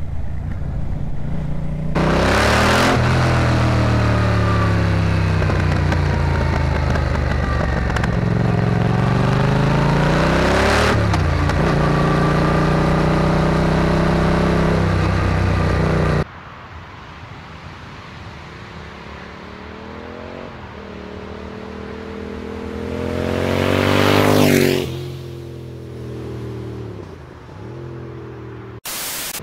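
Yamaha MT-07 parallel-twin engine through a Shark Street GP aftermarket exhaust, heard close up, accelerating through the gears with the revs repeatedly climbing and dropping at each shift. About 16 s in the sound switches abruptly to a quieter, more distant recording. In it the bike approaches, passes loudly about 24 s in, and falls away in pitch.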